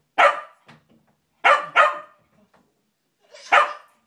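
Small dog barking: four sharp barks, one just after the start, two in quick succession about a second and a half in, and one near the end.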